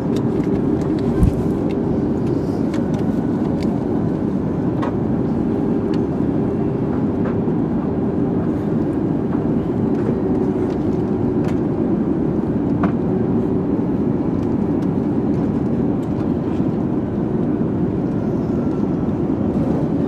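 Airbus A380 passenger-cabin noise during descent: a dense, steady low rumble of engines and airflow with a faint steady hum. Scattered faint clicks sound throughout, and one sharper knock comes about a second in.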